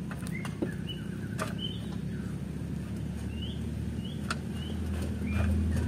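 Dump truck's diesel engine idling with a steady low hum that starts to grow louder near the end, while small birds chirp now and then.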